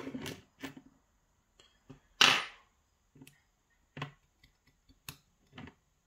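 Keys, tweezers and small metal lock parts clicking and tapping against a pin tray as they are handled and set down: a string of separate sharp ticks, the loudest a brief scrape about two seconds in.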